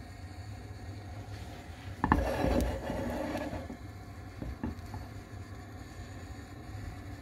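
A steady low hum, with a sharp knock about two seconds in followed by a second or so of rubbing and clattering, and another short knock a couple of seconds later.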